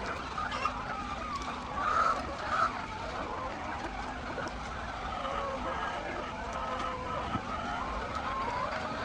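A large flock of hens calling and clucking together, many wavering calls overlapping into a steady din.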